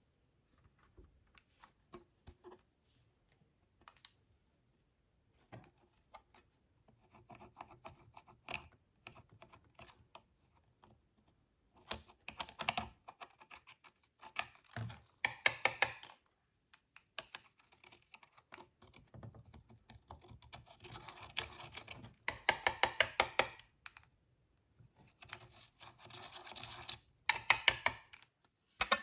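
Slime being squished and worked by hand, giving rapid crisp clicks and pops, with several louder bursts of a second or two of dense clicking.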